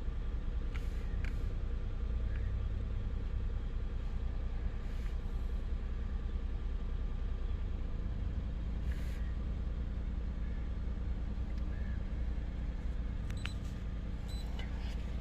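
2015 Hyundai Genesis 3.8-litre V6 idling steadily; the engine carries a throttle actuator control range/performance fault that holds it to about 2000 rpm at full throttle. A few light clicks near the end.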